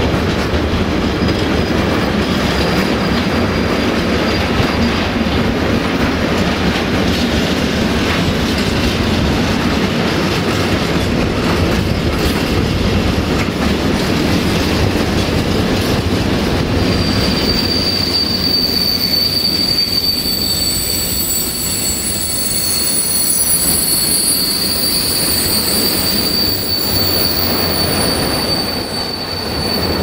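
Freight train of rail tank wagons rolling past close by, a steady loud rumble of wheels on the track. A steady high-pitched wheel squeal comes in about halfway through and keeps on.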